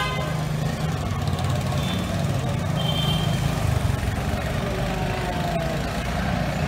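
Steady low rumble of street traffic, with two brief high tones about two and three seconds in.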